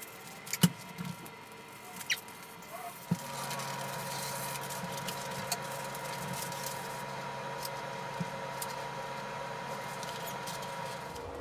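Stiff paper pattern sheets rustling and crinkling as they are handled and walked on by a cat, with a few sharp taps, the loudest about half a second in. About three seconds in, a steady hum starts underneath.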